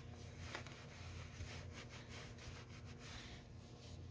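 Faint, irregular rubbing strokes of a rag wiping down engine parts, over a steady low hum.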